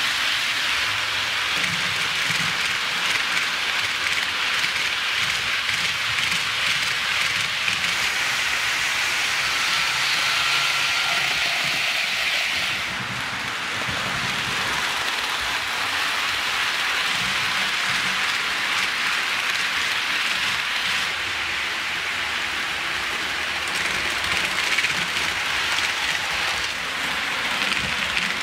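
HO scale model trains rolling over sectional track: a steady hiss and clatter of small metal wheels on the rails and rail joints. The sound dips and changes about halfway through.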